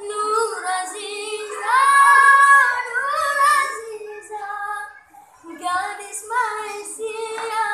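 A boy singing solo without accompaniment, drawing out long wavering notes with runs between them. The loudest note is held about two seconds in, and there is a short breath about five seconds in.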